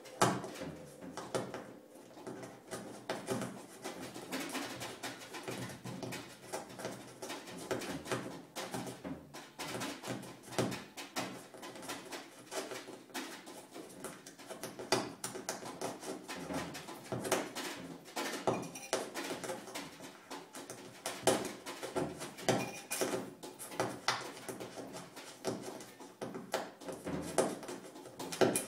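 Free-improvised playing on a drum kit with drums and cymbals: a dense, irregular stream of small strikes, clicks and clatter with no steady beat.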